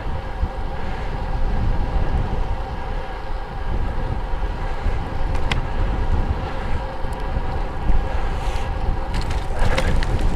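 Wind rushing over a bike-mounted microphone with road-bike tyre rumble, a steady low noise and a faint steady hum, with a few short clicks near the end.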